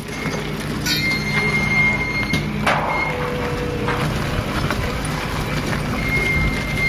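A vehicle running steadily, with a thin high squeal that comes and goes and a few light knocks.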